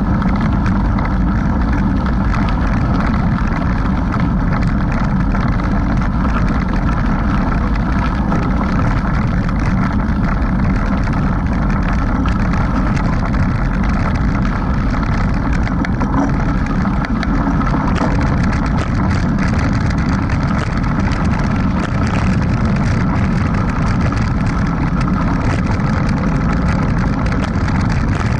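Mountain bike rolling down a dirt road: a steady rumble of tyres on packed dirt and gravel mixed with wind noise, close on an action camera's microphone.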